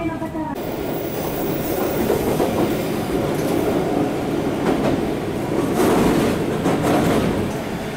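Diesel railcar running along the track, heard from on board, with wheels clicking over the rail joints in clusters.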